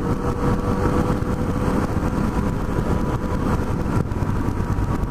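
Yamaha FJ-09's three-cylinder engine running at steady road speed, with wind rushing over the microphone. The sound holds steady without revving up or down.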